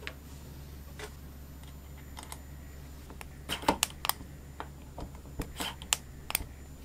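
Small sharp metal clicks and taps as a mini electric screwdriver drives tiny screws into brass blocks over the camshaft of a miniature engine's aluminium crankcase, in a cluster from about three and a half seconds in. A steady low hum underneath.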